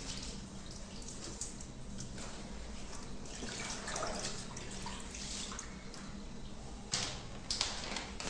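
Mini washing machine running: a steady motor hum under water sloshing in the tub, with a few sharper splashes near the end.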